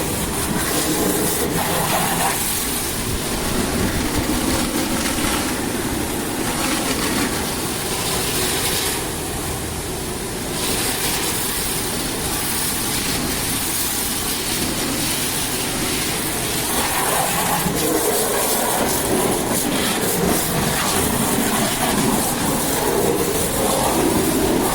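High-pressure water jet hissing, swelling and fading as the spray moves, over a steady machine rumble.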